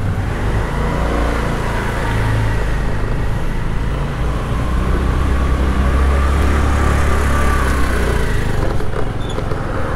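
Honda Activa scooter's single-cylinder engine running as it rides, a steady low hum with road and air noise that swells a little about halfway through.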